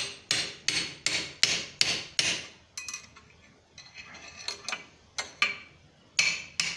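Hammer striking a quarter-inch steel drift to drive it through a hot forged steel knot held in a vise: a quick run of about seven sharp metal blows, about three a second, then lighter scattered taps and two harder blows near the end.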